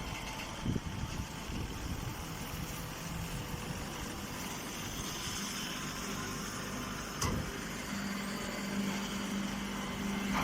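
Straw press baler machine running with a steady motor hum that grows stronger near the end, with two short knocks, one near the start and one about two-thirds of the way through.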